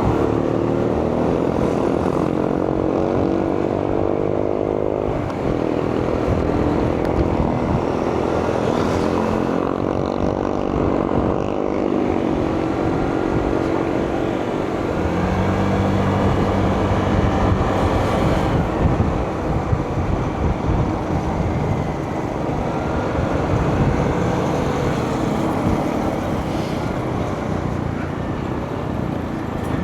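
Vehicle engine running with steady road and wind noise while riding, the engine pitch rising a few times as it accelerates.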